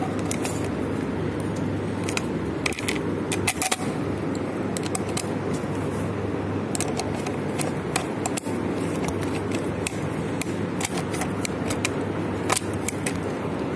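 Irregular small metallic clicks and scrapes of a screwdriver and tools working on an electrical wall socket to remove it, over a steady low background noise.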